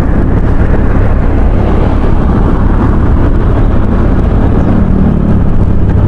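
Steady rush of wind buffeting the microphone on a moving motorcycle, with the bike's engine running beneath it.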